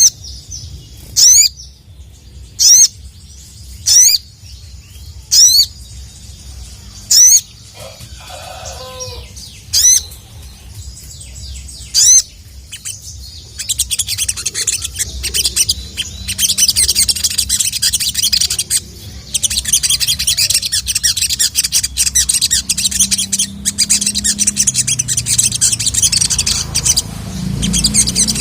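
Little spiderhunter (sogon) calling: eight loud, sharp, high 'cuit' notes about a second and a half apart, then, from about halfway, a continuous fast chattering song of rapid high notes.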